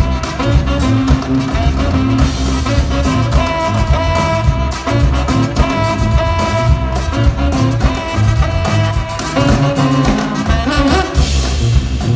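Live jazz band music: a tuba bass line, saxophone and drums playing over a steady beat.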